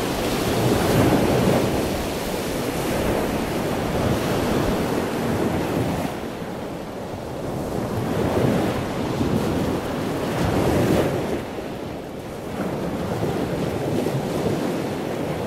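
Ocean surf: waves breaking and washing in continuously, swelling and easing every few seconds, with wind noise on the microphone.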